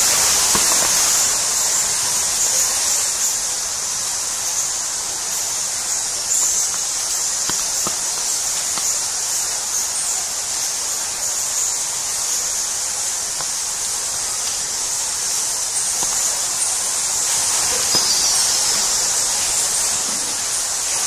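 Steady high-pitched hiss with faint scattered clicks.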